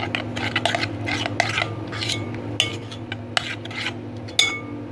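Metal spoon stirring a thick yogurt and green herb marinade in a glass bowl, clinking and scraping irregularly against the glass.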